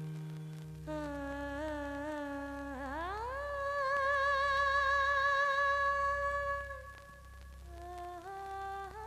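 Film background music: a wordless hummed melody over a steady low drone. The melody slides up about three seconds in, holds a high note with vibrato, then falls back to lower notes near the end.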